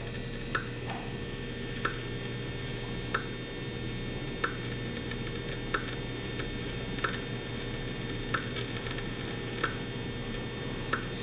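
Radio-frequency meter's speaker giving a short click about every 1.3 seconds over a steady hum and hiss, its audio rendering of pulsed wireless transmissions from a Fitbit.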